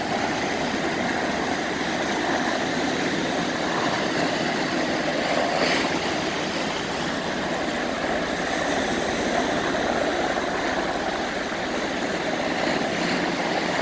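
UH-60 Black Hawk-type helicopter flying low, its rotor and engines making a steady noise.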